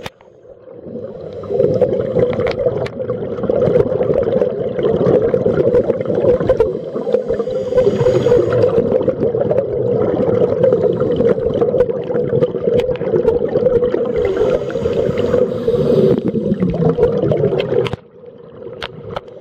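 Muffled underwater rush and gurgle of scuba divers' exhaled bubbles from their regulators, recorded underwater. The sound is quieter for the first second or so, then steady, and drops away again near the end.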